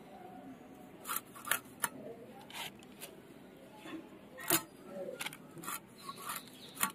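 Hilsa being cut on a boti, the fish pressed against the fixed curved iron blade: about eight short, irregular scrapes and clicks of flesh and scales against the metal, the loudest about halfway through.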